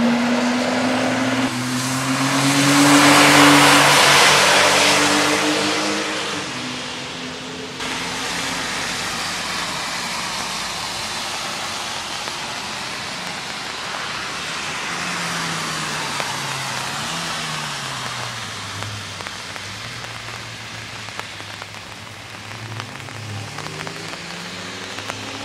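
Porsche 997 flat-six engines on a wet race track. A car accelerates past with a rising engine note and a loud hiss of wet tyres and spray, peaking about three to five seconds in. After that an engine is heard farther off, its note rising and falling through gear changes.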